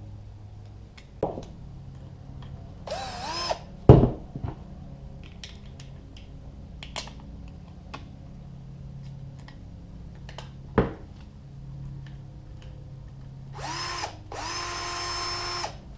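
Cordless drill driving the cord-clamp screws into a plug: a short spin-up about three seconds in, then near the end a brief burst followed by a steady run of about a second and a half. A few knocks of handling are heard as well, the loudest a sharp knock just after the first run.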